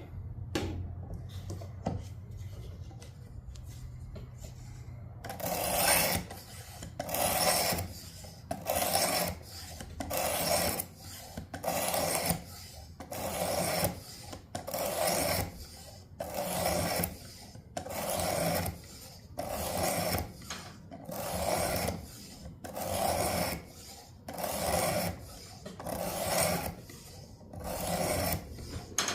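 A pocket knife blade drawn across the 320-grit coarse abrasive of a Work Sharp guided knife sharpener in rhythmic rasping strokes, about one every second and a half, beginning about five seconds in. The coarse grit is at work on an edge that is really dull.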